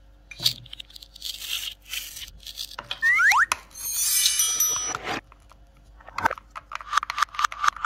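Hands swishing plastic toy fruit through soap foam in a plastic basin: the foam crackles and squelches in short bursts, with squeaks of wet plastic, falling in pitch about three seconds in, and a brief high tinkling around four seconds in.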